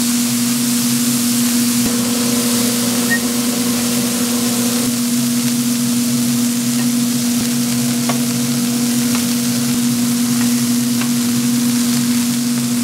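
Steady hum of restaurant-kitchen machinery at one constant pitch, under an even hiss, with a few faint scattered clicks.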